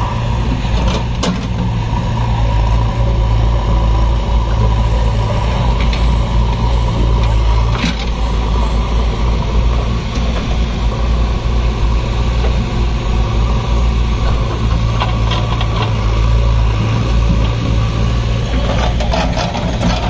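Heavy diesel engine of a working backhoe loader running steadily with a low, even rumble. A few short knocks come through about a second in, around eight seconds, and near the end.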